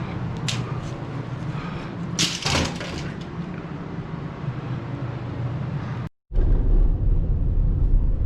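Steady low rumble of a vehicle, with a couple of sharp clatters, the louder one a little over two seconds in. After a brief cut near the end, a louder low rumble follows.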